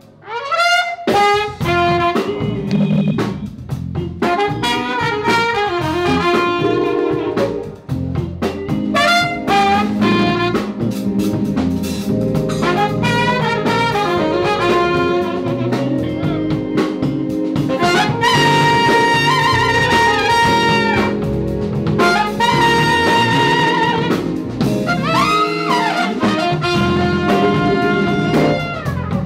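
Live jazz band: trumpet and saxophone playing melody lines together over a drum kit and electric guitar, with several long held horn notes in the second half.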